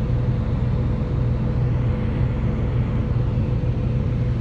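Grain augers and a rotary screener running steadily while a wagon of soybeans is unloaded into a bin: a constant machine drone with a low hum and a steady higher tone.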